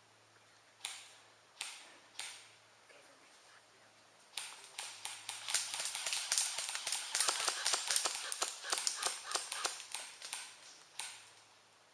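Airsoft guns firing: three single sharp shots in the first couple of seconds, then about six seconds of rapid, overlapping shots, and one more single shot near the end.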